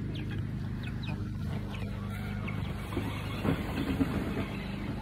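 A steady low machine hum, with young chickens giving short falling peeps as they peck at tomato scraps. A few knocks come about three and a half to four seconds in.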